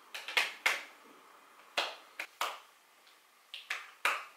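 Hands clapping lightly together, about nine short sharp claps in three uneven groups.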